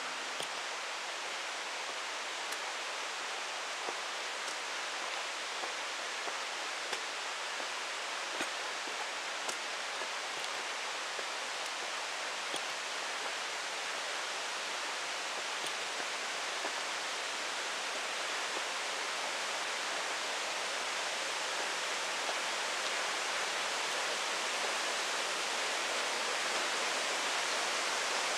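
Steady rushing noise of flowing water, slowly growing louder, with a few faint ticks scattered through it.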